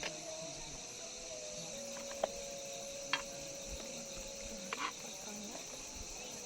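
Crickets trilling steadily in a high, even night chorus, over a faint steady low hum, with a few short sharp clicks.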